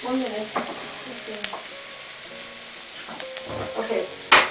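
Chopped garlic sizzling in a little hot oil in a wok, a steady frying hiss, with a sharp knock about four seconds in.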